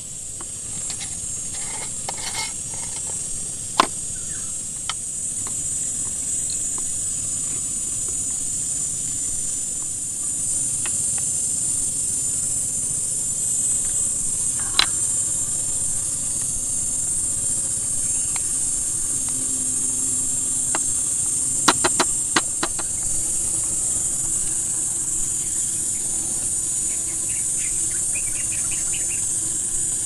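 Steady high-pitched insect chorus, with scattered light clicks and knocks and a quick run of several clicks about two-thirds of the way through.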